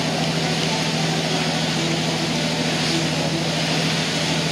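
Steady drone of a boat's engine under way, one unchanging low tone, over a constant hiss of wind and water.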